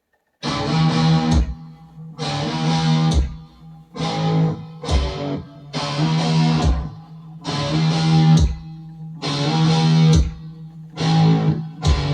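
Music: strummed guitar chords in a repeating pattern, a loud chord about every two seconds with a bass note under each, starting about half a second in.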